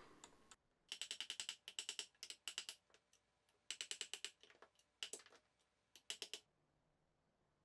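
Mallet tapping a hard-maple sawhorse's wedged rail-to-leg mortise-and-tenon joint together: six quick runs of light taps with short pauses between them.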